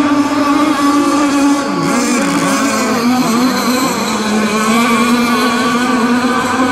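Radio-controlled racing boat engines running at full throttle: a steady, high engine drone whose pitch wavers and dips briefly a couple of times about two seconds in.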